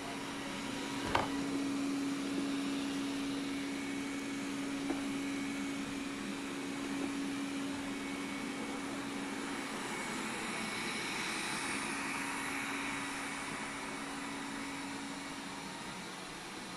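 Xiaomi Mijia 1C robot vacuum-mop running with a steady hum and hiss, with one sharp knock about a second in.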